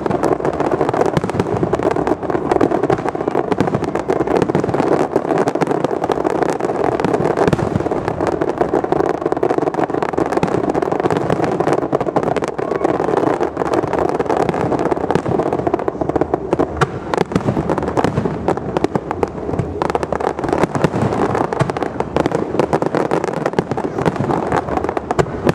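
Fireworks display: a dense, continuous barrage of bursts and crackling pops with no pause.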